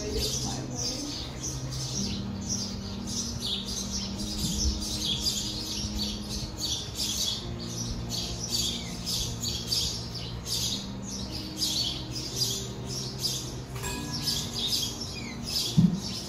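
Many small birds chirping rapidly and without a break, over a steady low hum. A short knock sounds near the end.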